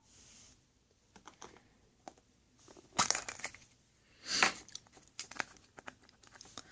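Toy packaging being handled and opened: crinkling and tearing rustles with small clicks, loudest about three seconds in and again just after four seconds.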